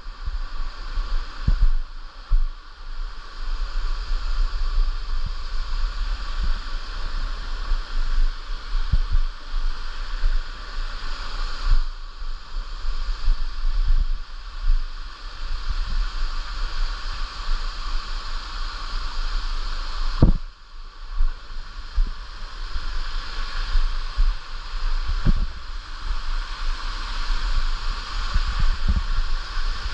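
Steady rush of water from a jungle stream and waterfall, with irregular low thumps of wind buffeting the microphone.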